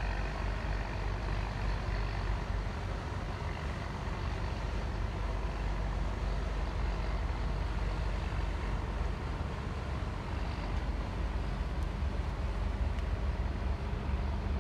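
Deep steady rumble of the passing container ship SITC Chenming over an even hiss of moving water, with the rumble growing a little stronger near the end.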